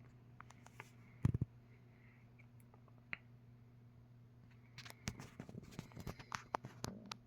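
Clicks and taps from handling a 1960s AMC box fan while switching it over to reverse: one sharp knock about a second in, then a quick run of clicks near the end, over a steady low electrical hum.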